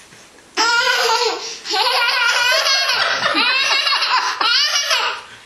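Toddler laughing loudly in high-pitched peals: a first short bout about half a second in, a brief break, then a longer run of laughter that stops shortly before the end.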